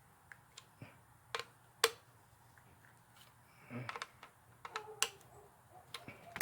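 Scattered small clicks and taps of plastic and metal parts being handled as a dryer timer is reassembled, the sharpest two close together about a second and a half in.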